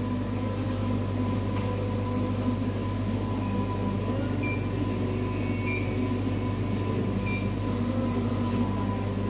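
Three short electronic beeps from the Cornley K-Lite 3 electrolyte analyzer's keypad as keys are pressed, over a steady machine hum. The beeps come about halfway through and are a second or so apart.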